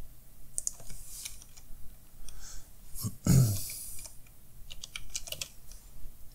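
Typing on a computer keyboard: scattered key clicks. About three seconds in there is a short, low vocal hum or grunt falling in pitch.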